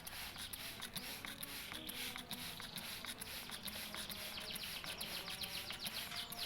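Light clicking and patter, then from about four seconds in a green leafbird (cucak ijo) giving a quick run of short, falling high-pitched chirps.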